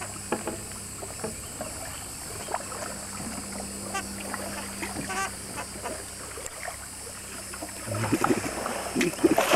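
Canoe and kayak paddles dipping and splashing in calm river water, with small knocks, over a steady background hum. It gets louder near the end.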